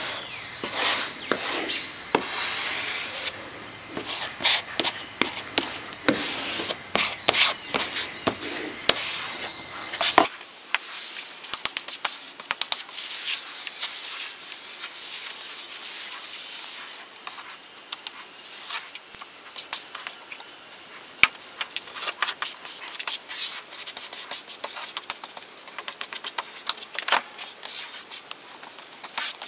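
Plastic epoxy spreader scraping and smearing wet epoxy across bare plywood, a run of quick scrapes and light clicks with a wet hiss, as the transom pieces are wetted out with epoxy.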